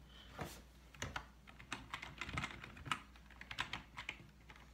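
Typing on a computer keyboard: a run of irregular keystrokes, some clicks sharper than others.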